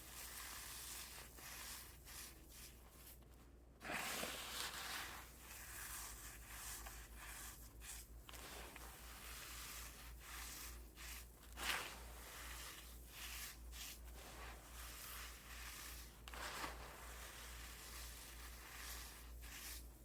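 Fragile pieces of reformed cornstarch being crushed, a continuous fine crackling crunch with louder crunches about four seconds in, near twelve seconds and near seventeen seconds. A steady low hum runs underneath.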